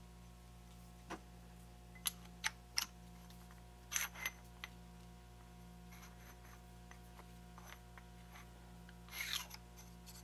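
Faint scattered metal clicks and taps as a turned mild-steel taper guide is handled and slid into a knurled aluminium die-holder handle, a small cluster about four seconds in and another near the end, over a steady low hum.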